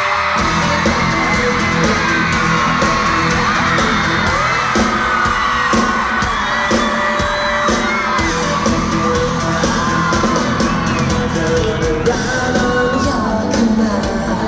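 Live rock band playing at full volume, with the drums and bass coming in about half a second in. Crowd screaming and whooping over the music.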